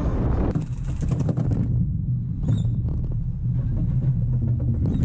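Roller coaster car running on a steel track: a steady low rumble with a burst of clattering clicks in the first couple of seconds, then a few single clicks.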